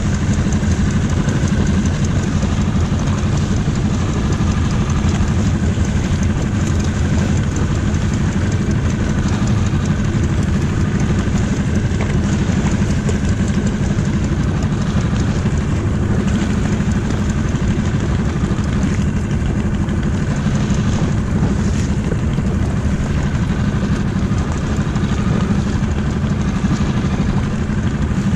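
Small outboard motor running steadily, driving an inflatable dinghy over choppy water.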